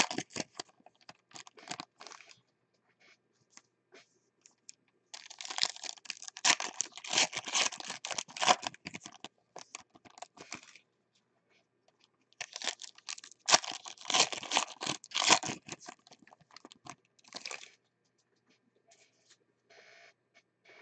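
Foil wrappers of football trading-card packs being torn open and crinkled by hand, in two rustling, crackling spells of about five seconds each. Scattered light clicks and taps from handling the cards come between them.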